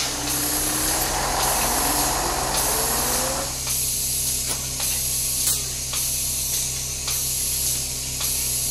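Electronic sound design over the closing title card: a steady hiss over a low hum, with tones rising during the first three seconds or so and soft pulses in the hiss a little under twice a second.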